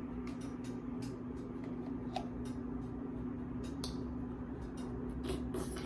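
Quiet eating: a person chewing a Pop-Tart, with faint, irregular mouth clicks and crackles over a steady low electrical hum.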